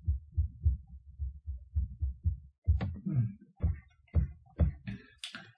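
Computer mouse scroll wheel turned in steps: a run of soft low thumps and clicks, about four a second, as the page scrolls, with a short hiss near the end.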